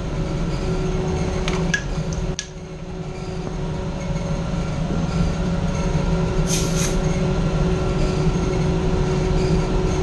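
Steady mechanical hum of the HVAC unit's running refrigeration circuit, its compressor and blower. A few sharp clicks about two seconds in, and a brief hiss a little past the middle.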